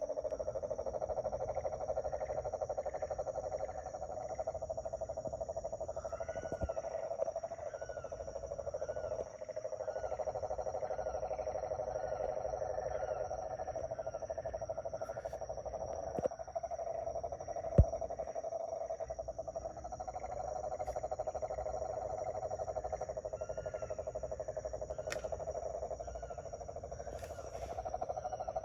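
Night frog chorus: many frogs trilling together into a steady pulsing hum, with a thin high insect whine and scattered short chirps above it. A few sharp clicks break in, the loudest about eighteen seconds in.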